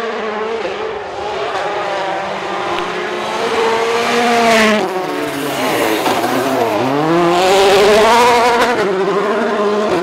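Volkswagen Polo R WRC rally car's turbocharged 1.6-litre four-cylinder engine at high revs, sliding through a gravel corner with loose gravel spraying from the tyres. The revs fall away about halfway through, then climb again strongly as it powers out.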